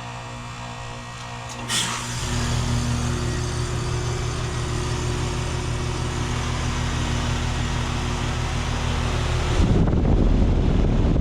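2018 Carrier Sentry heat pump outdoor unit switching over during its defrost cycle. A low steady hum is cut by a sudden whoosh, likely the reversing valve shifting, followed by a loud steady hiss of refrigerant and a stronger machine hum. About two seconds from the end a loud low rumble sets in.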